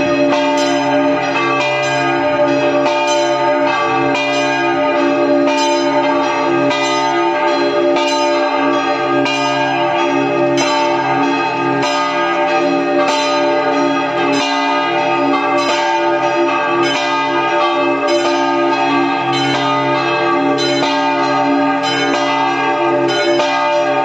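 Swinging bronze church bells in a belfry pealing a festive ring ('campane a festa'). Fresh strokes come about once or twice a second and overlap with the ringing tones, so the peal sounds as one continuous, dense clangour.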